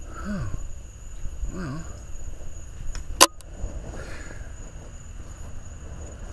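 Two short, low murmured voice sounds falling in pitch near the start, then a single sharp click about three seconds in, over a faint steady high-pitched tone and low rumble.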